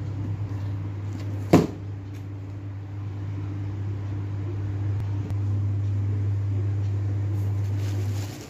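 A steady low machine hum with a sharp knock about one and a half seconds in; the hum cuts off suddenly near the end.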